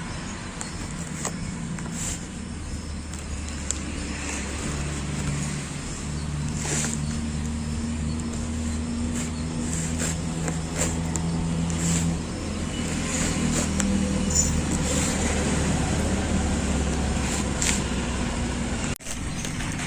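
Low, steady hum of a motor vehicle engine running nearby, with a few held tones that shift slightly. Scattered light clicks and knocks of the tool set's packaging being handled.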